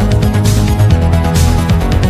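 Electronic background music with a steady beat, a heavy bass line and a rushing swell about once a second.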